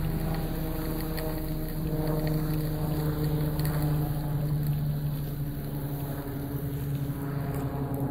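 Thermite burning on a cast-iron engine block: a steady hiss with a low, even hum, swelling a little in the middle and easing toward the end.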